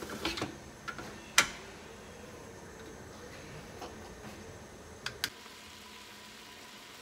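Stainless-steel pressure cooker lid being closed and locked: knocks of metal at the start, a sharp click about a second and a half in, then two quick clicks about five seconds in.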